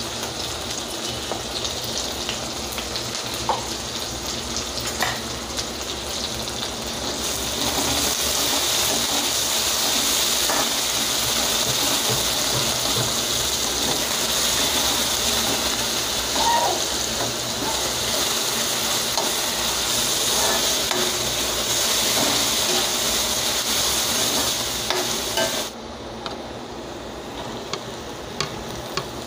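Chopped onions, green chillies and garlic sizzling in hot oil in an aluminium kadai, stirred with a metal ladle that scrapes and taps against the pan now and then. The sizzle grows louder about a quarter of the way in and drops off abruptly near the end, as a heap of fresh amaranth leaves goes into the pan.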